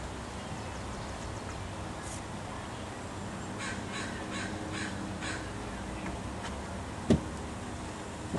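Crows cawing: a run of about five short caws in quick succession a few seconds in, over steady low background noise. A single dull thump near the end is the loudest sound.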